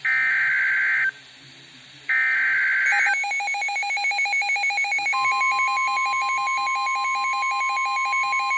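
Emergency Alert System tones for a severe thunderstorm warning. Two one-second bursts of the harsh digital SAME data header come first. From about three seconds a fast-pulsing electronic beep alarm starts, and about five seconds in it is joined by the steady 1050 Hz NOAA Weather Radio warning tone.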